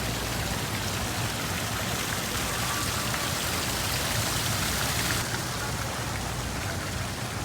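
Steady rushing hiss over a low rumble; the high hiss eases about five seconds in.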